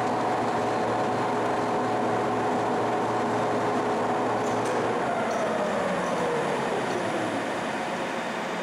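1955 King 100-inch vertical turret lathe running, its 75 hp AC main drive and table giving a steady hum with a whine. About five seconds in the whine starts falling in pitch as the machine slows down.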